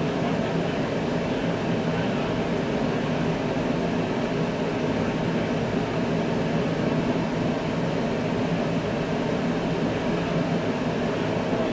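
The 1961 Buick's 401 Nailhead V8 running at a steady idle, an even low rumble that does not change.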